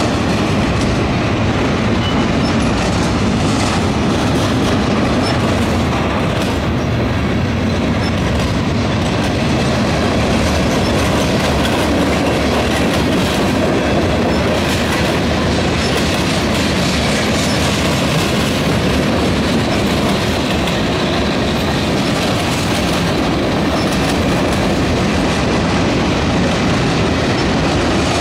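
Freight cars of a mixed freight train rolling past at close range: a loud, steady rumble and rattle of wheels on rail, with wheel clicks over the rail joints.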